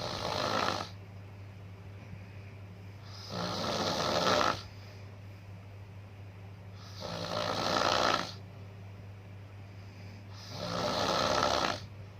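A sleeper snoring: four slow, rasping snores, one about every three and a half seconds, each swelling for about a second before breaking off, over a steady low hum.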